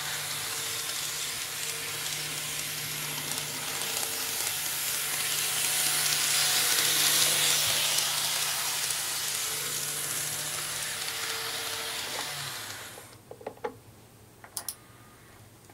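H0 Märklin E41 and N-gauge KATO KiHa 58 model trains running on their track, a steady hissing rolling noise of wheels on rail with a faint motor hum, loudest around the middle. The running noise falls away about 13 seconds in, and a few light clicks follow.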